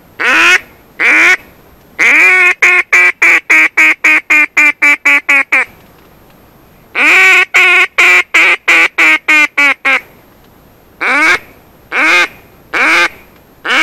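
Duck call blown in mallard-hen quacks: a few single quacks, then two long runs of short quacks that get quicker, then single quacks about a second apart. It is a hail call to passing ducks, turning them toward the decoys.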